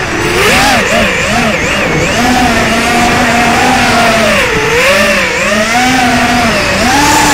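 ZMR250 quadcopter's brushless motors and propellers whining, the pitch rising and falling constantly with the throttle, over a rush of wind, heard from a camera on board the drone.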